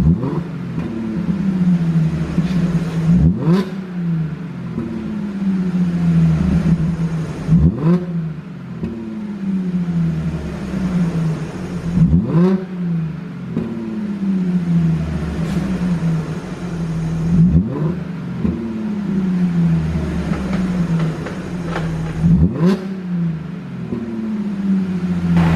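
Audi 3.0 TFSI supercharged V6 free-revved about six times, each blip rising quickly and falling back slowly to idle. Sharp exhaust pops sound as the revs drop, from a tune made to crackle on overrun.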